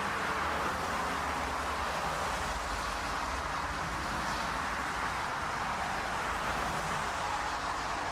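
Steady aircraft engine noise: an even hiss with a low rumble beneath, unchanging in level.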